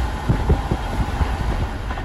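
Sleeper train couchette car running on the track, heard from inside the car: a steady low rumble with a quick series of knocks from the wheels over the rails about half a second to a second and a half in.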